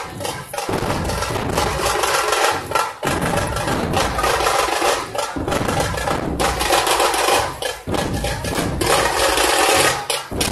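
Dhol-tasha troupe drumming: many large dhol barrel drums beaten together with sharp, crackling tasha strokes, loud and driving. The rhythm comes in phrases broken by brief pauses every two to three seconds.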